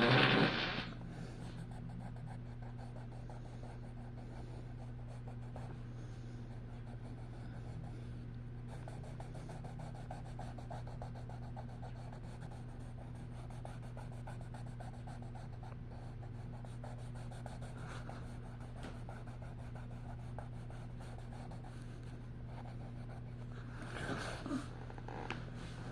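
Coloured pencil scratching on paper, faint, over a steady low hum. A short, loud sound right at the start, and a few small knocks near the end.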